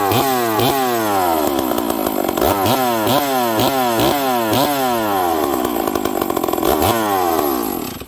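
Stihl 038 two-stroke chainsaw, still cold, revving in repeated quick throttle blips with short stretches of idle between, then cut off at the end. Its low-speed jet has just been turned in a touch, so it picks up cleanly instead of loading up with fuel from running rich.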